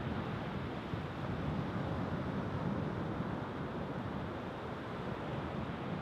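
Surf breaking on the shore with wind buffeting the microphone: a steady rushing roar, heaviest in the low range.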